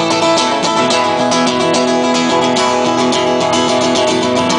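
Live country band playing an instrumental break, led by strummed acoustic guitar with a steady rhythm.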